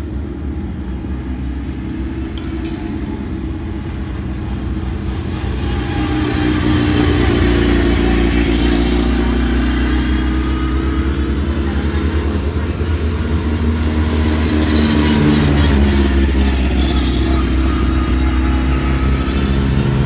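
Motor vehicle engines running, their pitch slowly rising and falling, getting louder about six seconds in.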